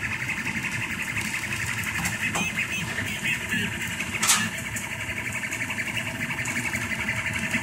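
Rostock MAX delta 3D printer running a print: its stepper motors whir and chatter as the print head makes quick short moves, over the steady hum of its small cooling fans. There is one short sharp tick about four seconds in.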